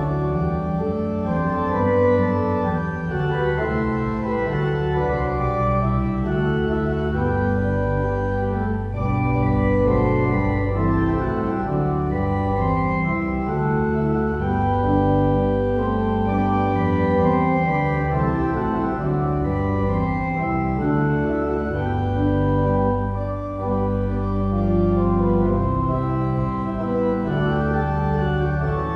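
Organ music playing slow, held chords over a continuous deep bass.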